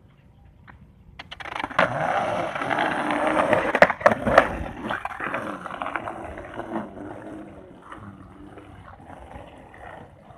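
Skateboard wheels rolling over rough, grooved concrete. The sound starts about a second in, swells as the board rides close and then fades as it rolls away. Two sharp clacks come about four seconds in.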